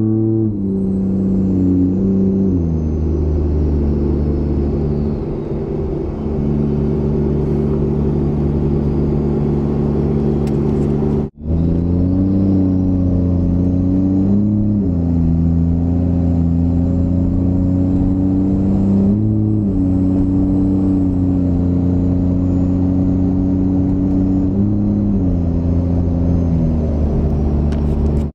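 A 6.7 Cummins inline-six turbodiesel in a Ram 2500 pulling under way, heard from inside the cab. Its pitch steps down and back up several times as the 68RFE automatic shifts gears. A faint high turbo whistle falls early on and rises again after a brief dropout near the middle.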